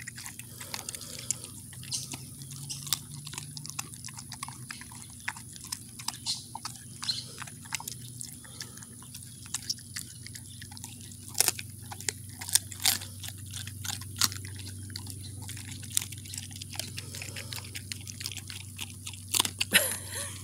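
An old German Shepherd chewing raw rabbit meat and bone, with irregular crunches and clicks from her teeth, slow and uneven. A faint steady low hum runs underneath.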